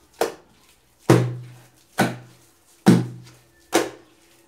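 Soft, wet sfenj dough (semolina, flour, eggs and yeast) lifted and slapped down by hand onto a tiled worktop: five heavy slaps, about one a second. The dough is being beaten once it has started to form bubbles, so the fried fritters come out light.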